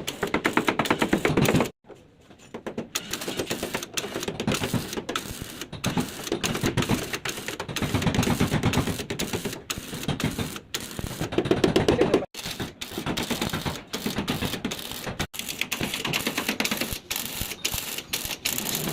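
Fast, rapid clatter of repeated taps or knocks, broken off abruptly several times.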